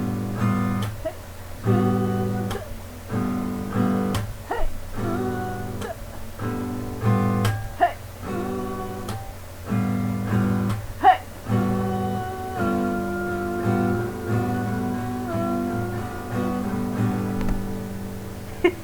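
Acoustic guitar music: chords strummed about once a second in a steady rhythm, with a held melody line in the second half.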